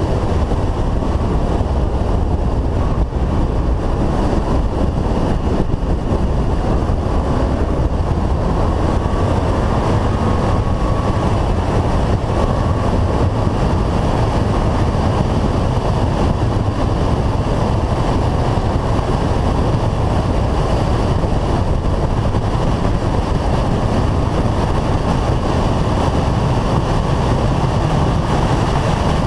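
Renault Clio 182's 2.0-litre four-cylinder engine running hard at track speed, mixed with steady wind rush over a roof-mounted camera's microphone.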